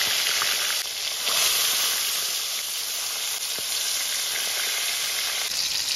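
Whole climbing perch sizzling steadily in hot oil as they fry in a wok.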